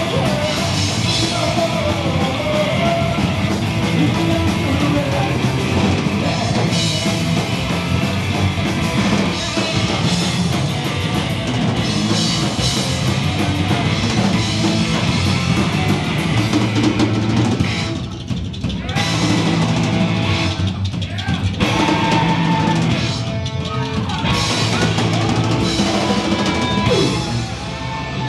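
Live rock band playing loud: drum kit, upright bass and electric guitar, with a few short stops in the second half.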